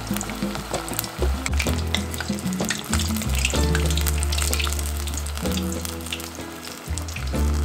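Tempura-battered kahawai strips frying, with a steady sizzle and dense crackling.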